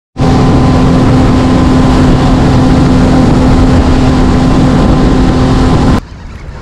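Motorboat engine running steadily at speed, with a constant drone and rushing noise, ending abruptly near the end.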